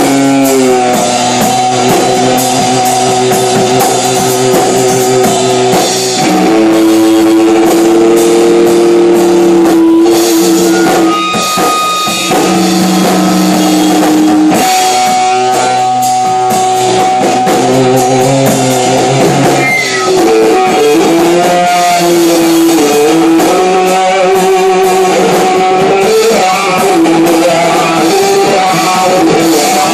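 Band rehearsal of stoner metal, loud: electric guitar playing riffs with long held and bent notes over a drum kit.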